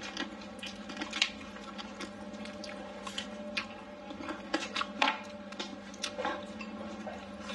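Close-up wet chewing and lip smacking of a mouthful of soft food (rice and braised chicken), with irregular short clicks of the mouth over a faint steady hum.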